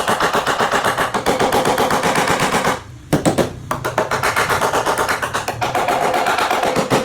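Rapid, evenly spaced tapping on a car's sheet-metal body panel during dent repair, about eight to ten strikes a second, with a short pause about three seconds in.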